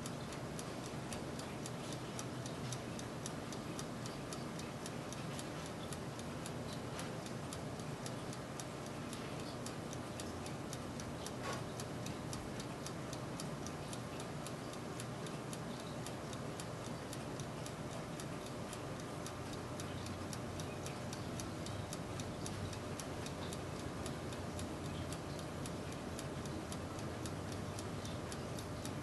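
Turbo convection oven running, its fan and heater giving a steady hum and whir, with fast, evenly spaced ticking over it.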